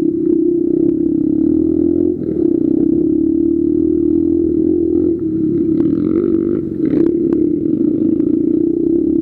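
Dirt bike engine running steadily under throttle while riding a rough trail, dipping briefly a few times. A few short knocks and rattles about six to seven seconds in.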